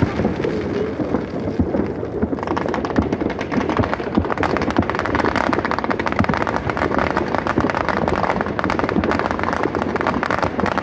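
Aerial fireworks going off overhead as a dense, continuous crackle of many rapid small pops, thickening about two seconds in.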